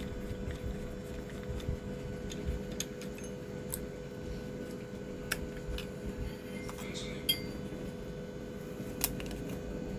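Scattered light metallic clicks and clinks of small hand tools working on an amplifier circuit board as the surround amplifier chip is taken out, over a faint steady hum.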